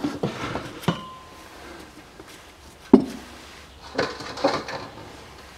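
A few sharp clinks and knocks of the oil-filling gear being handled and pulled away from the transfer case filler hole, the loudest about three seconds in and a short cluster near the end.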